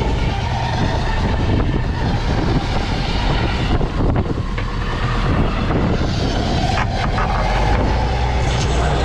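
Fishing boat's engine running steadily, with wind and water noise and a few brief knocks.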